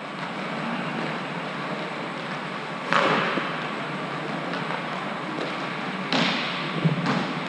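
Inline hockey play: two sharp knocks with a short ringing tail, about three seconds apart, then a few lighter clacks, over a steady noisy background.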